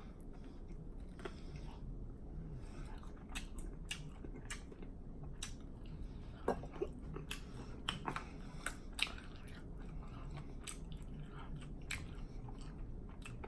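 A person chewing food with wet mouth smacks and lip clicks at an irregular pace, a few louder smacks about halfway through.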